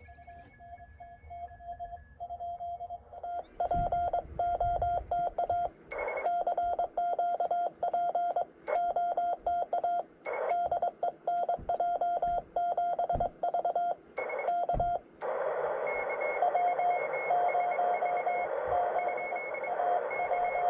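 Morse code (CW) from a ham radio transceiver: a single beep tone keyed on and off in dots and dashes, faint at first and much louder a few seconds in. From about fifteen seconds in, the tone sits in steady radio hiss, and a few faint low knocks come through along the way.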